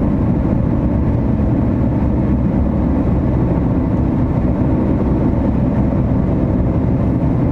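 Strong storm wind blasting the microphone, a loud, steady low rumble.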